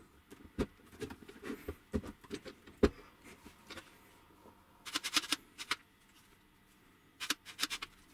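Small clicks and knocks of 3D-printed plastic parts and metal guide rods being fitted together and handled, with a quick run of clicks about five seconds in and another near the end.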